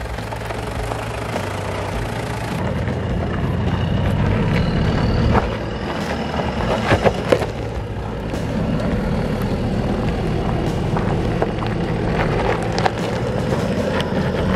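Toyota Land Cruiser Prado 90 Series engine running under load as the 4x4 crawls slowly over a rocky trail. A few sharp knocks and cracks sound near the middle, the loudest about seven seconds in.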